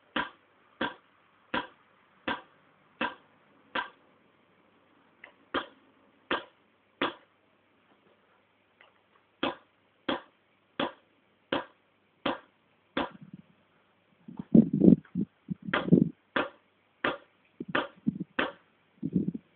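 Paintball marker firing single shots: a sharp pop about every three quarters of a second, in runs of several shots with short pauses between runs. Dull low thumps mix in during the last few seconds.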